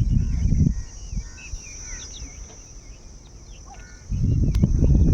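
Many small birds chirping over a steady high-pitched insect drone. A low rumble, like wind or handling on the microphone, covers the first moment and comes back about four seconds in.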